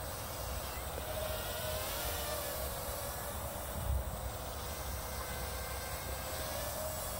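Lidl QC 360 A1 toy quadcopter's motors and propellers whining in flight, the pitch drifting slightly up and down as the throttle changes. Wind rumbles on the microphone.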